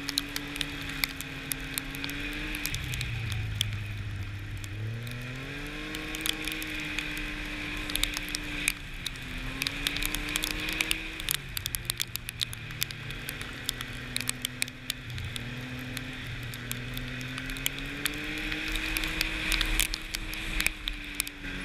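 Arctic Cat snowmobile engine running under way on the trail, its pitch dipping and climbing again several times as the throttle is eased and opened. Many sharp ticks and crackles sound over the engine throughout.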